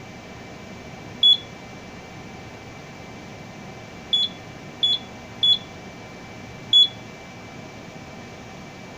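Simplex 4100U fire alarm control panel keypad beeping as its buttons are pressed: five short, high beeps at uneven intervals, one about a second in and four more between about four and seven seconds in.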